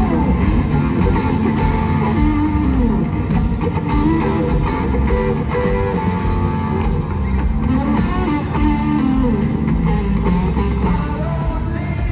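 Live rock band on a stadium sound system, with an electric guitar playing a melodic line over bass and drums.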